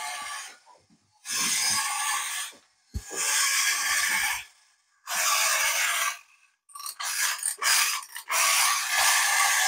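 Clockwork toy dog's wind-up mechanism making a rasping, growl-like noise in five bursts of about a second each, with short gaps between them.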